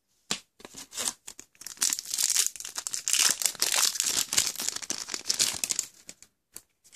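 A foil trading-card booster pack wrapper being torn open and crinkled by hand. There are a few light crinkles at first, then dense crackling from about two seconds in, dying away about a second before the end.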